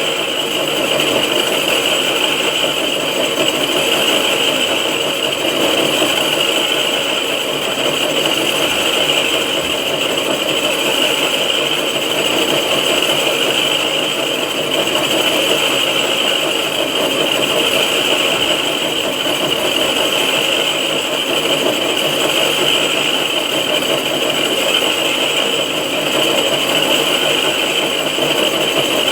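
6R12 vertical knee-type milling machine running steadily while milling the face of a cylinder head, a constant machine noise with a high, steady cutting tone.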